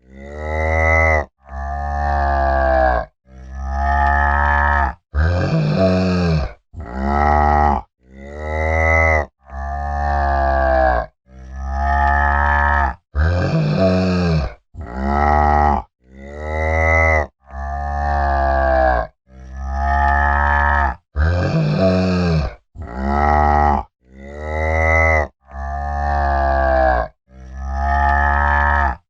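Cow mooing over and over, a call roughly every one and a half to two seconds. Each moo arches up and then down in pitch, and the calls look like the same few moos repeated in a loop.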